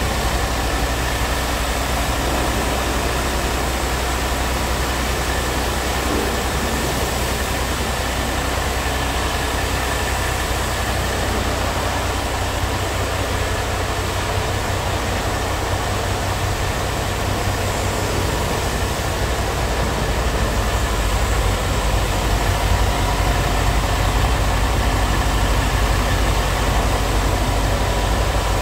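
Scania G tractor unit's diesel engine idling with a steady low hum, a little louder near the end.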